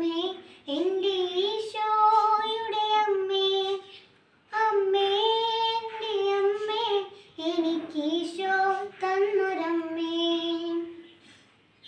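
A young girl singing solo, unaccompanied, in long held phrases, pausing for breath about four seconds in and again near the end.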